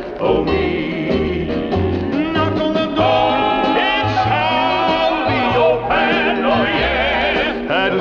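Southern gospel vocal group singing in long held notes with vibrato, over band accompaniment with a steady bass.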